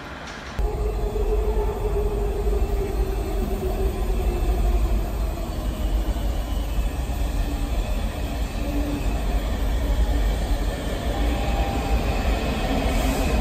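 A Washington Metro train approaching through the tunnel into a vaulted underground station: a deep, steady rumble with a humming motor tone. Higher-pitched tones come in near the end as it nears the platform.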